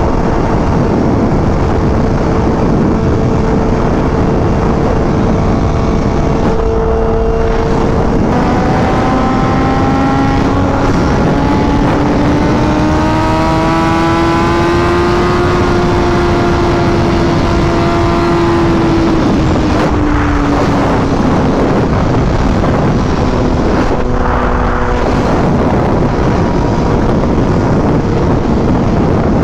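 BMW M1000RR's inline-four running through a full titanium SC-Project exhaust while being ridden, under heavy wind rush on the microphone. The engine pitch holds steady, changes about seven seconds in, climbs slowly and falls away again, and changes once more near the end.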